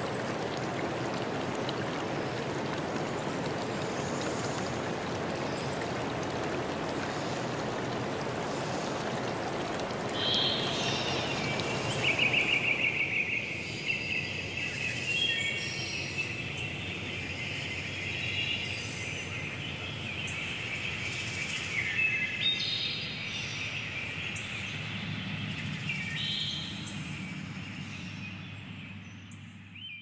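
Water of a shallow stream flowing steadily. About ten seconds in, birds begin singing and chirping, and a few seconds later the water sound drops away, leaving the birdsong over a quiet woodland background that fades out at the very end.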